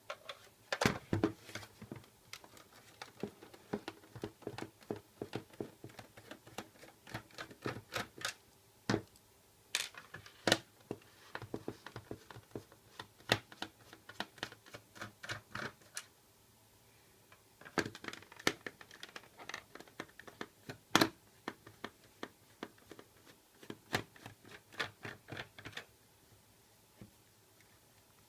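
Plastic housing of an LED flashlight being taken apart by hand and with tools: irregular sharp clicks, taps and scrapes of plastic and small parts, with a few short pauses.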